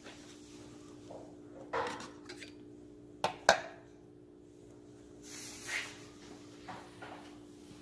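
Hard objects being handled: a knock, then two sharp clicks in quick succession, and a brief rustle, over a faint steady hum.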